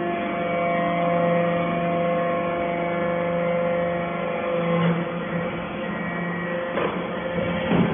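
Hydraulic briquetting press's power unit running: the electric motor and hydraulic pump hum steadily, with a few short knocks in the second half.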